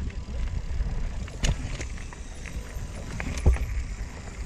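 Norco Range carbon enduro mountain bike rolling down rocky, rooty singletrack: tyres crunching over dirt and stones with a low rumble, and irregular knocks and rattles from the bike, the loudest a sharp knock about three and a half seconds in.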